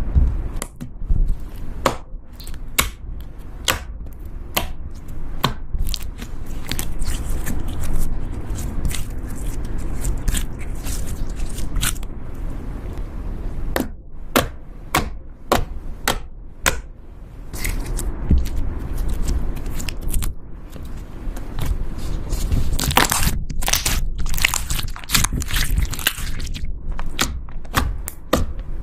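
Slime being squeezed and pressed by hand, giving many irregular crackling pops and crunches, busiest a little after halfway.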